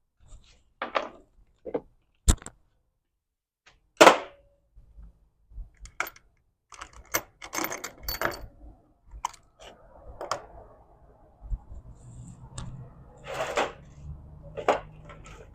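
Scattered metal clinks and knocks of hand tools and sockets being handled, with a sharp knock about four seconds in. A faint low hum joins in the last few seconds.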